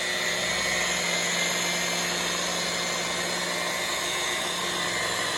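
Rotary buffer with a wool pad running steadily at low speed, buffing a car's clear coat.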